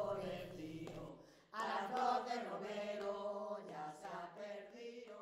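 Group of village women and men singing a traditional Spanish choral folk song (copla) together. The singing breaks off briefly about a second in, comes back, and fades out near the end.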